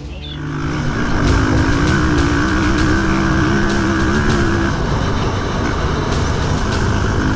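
Dirt bike engine running, its pitch wavering up and down, over a regular high ticking; the engine note drops away a little before five seconds in.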